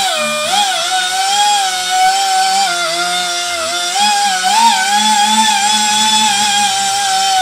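Electric rotary tool with a small ball burr, whining steadily as it cuts into truck tyre tread rubber, its pitch dipping and recovering as the burr bites under load.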